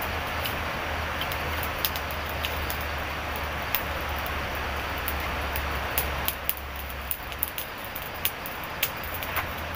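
Wood campfire crackling, with irregular sharp pops coming more often in the second half, over a steady hiss and a steady low hum that drops away about seven seconds in.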